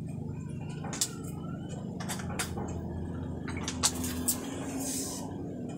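Plastic cups of packaged drinking water being taken out of a cardboard box and handled: several sharp plastic clicks and crinkles, and a short hiss near the end, over a steady low hum.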